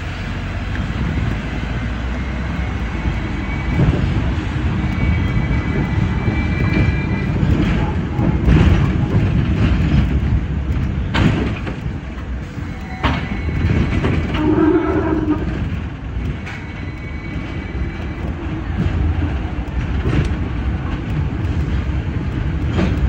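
Hong Kong double-decker electric tram running over street track, heard on board: a steady low rumble of wheels and motor, with sharp clicks as the wheels cross rail joints and points, and a thin high wheel squeal now and then as it rounds the curves into the terminus loop.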